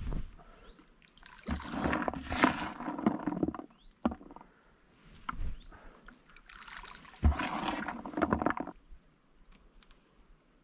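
Two bursts of splashing and rustling, each about two seconds long, with a heavier knock at the start of the second, as handfuls of raw-corn groundbait are thrown by hand into the river.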